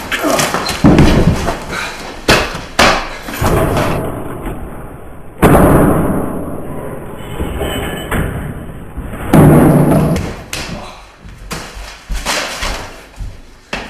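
A scuffle: bodies thud and bang against the floor and furniture as two people wrestle, with several loud thumps and slams and scuffling in between.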